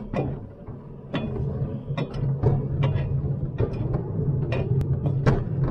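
Mechanical clacking and rattling over a steady low hum, with sharp metallic clicks about once or twice a second at uneven spacing.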